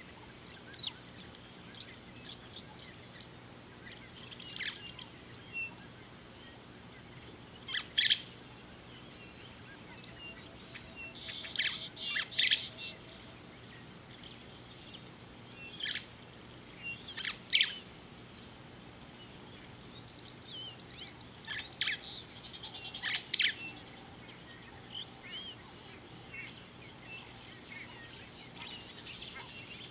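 Wild birds calling at a watering hole: short, sharp chirps and whistles scattered irregularly, with a few louder calls among them. A faint steady low hum runs underneath.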